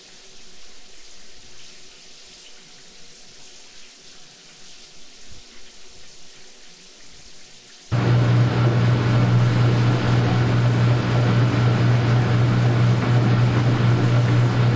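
Washing machine with quiet water sounds, then about eight seconds in its motor switches on with a loud, steady low hum that runs for about seven seconds and stops abruptly.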